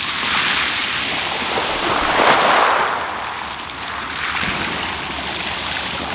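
Small waves breaking and washing up a shingle beach, the surf swelling and easing every two seconds or so.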